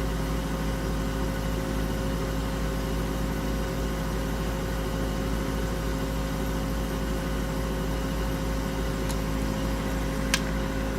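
Room air conditioner running with its compressor on, a steady hum with a few steady tones under a fan's whoosh. The owner says the unit is not working properly: set to 60 degrees, it holds the room at about 74.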